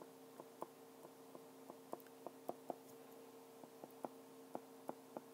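Faint, irregular ticks of a stylus tip tapping on an iPad's glass screen while handwriting, a few ticks a second, over a low steady hum.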